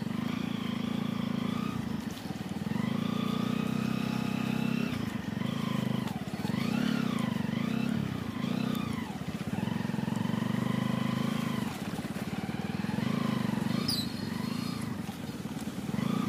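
Motorcycle engine running while riding slowly, its pitch rising and falling repeatedly as the throttle is opened and eased off.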